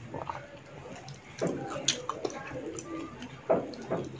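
Close-up mouth sounds of someone eating dahi puchka, yogurt-filled puri shells: irregular wet chewing and smacking, with sharper crackles about one and a half and three and a half seconds in.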